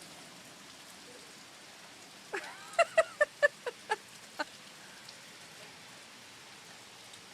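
Steady rain from a tropical storm falling. About two and a half seconds in comes a quick run of about seven short, high yelps, the loudest sound.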